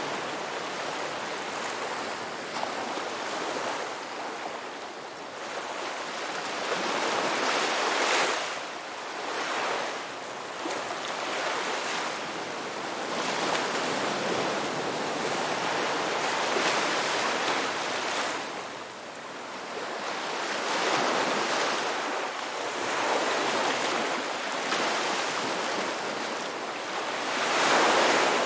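Ocean waves breaking and washing on a shore, a steady hiss of surf that swells and falls back every few seconds, with a louder break about 8 seconds in and another near the end.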